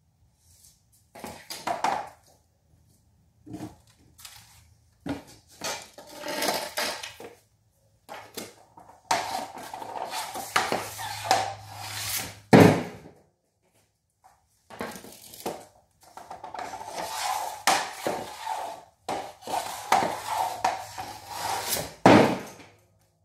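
Ice hockey stick and puck on a concrete garage floor and shooting pad: scraping and clacking as the puck is worked with the stick. Two loud sharp cracks of shots, one about halfway through and one near the end.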